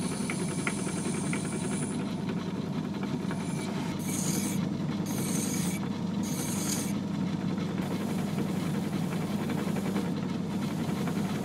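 Myford ML7 lathe running with a steady hum, spinning a brass flywheel. A reamer in the bore gives a thin high whine for the first two seconds. A hand file then rasps across the spinning brass edge in three strokes, and an abrasive pad rubs against it near the end.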